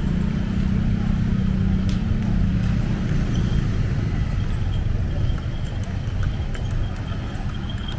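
A motor vehicle's engine running close by in street traffic, strongest for the first five seconds, then easing into the general traffic hum.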